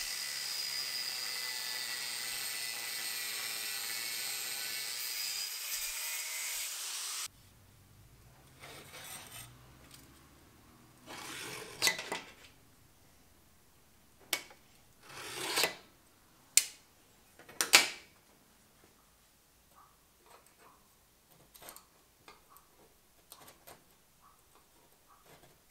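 Angle grinder with a cut-off disc running steadily as it cuts the studs off an aluminium radiator's end tank, stopping abruptly about seven seconds in. After that, quiet with scattered light scrapes and taps of a vernier caliper and a scriber on steel angle.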